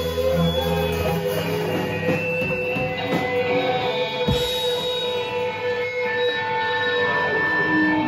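Live electric guitars ringing out in long, held, droning notes, without a drumbeat. A low bass note drops out about a second in, and there is a single low thump midway.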